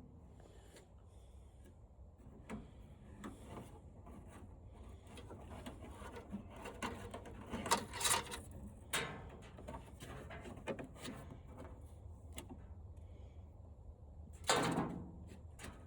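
Faint handling noises from taking apart a flat-screen TV by hand: scattered small clicks, knocks and rubs of plastic parts. There is a louder scrape about halfway and another near the end.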